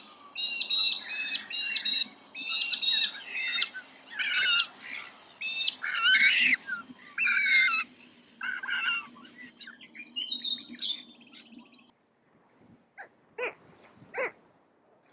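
Birds calling: a run of short chirping notes, about two a second, that stops abruptly after about twelve seconds. Three short, sharp calls follow near the end.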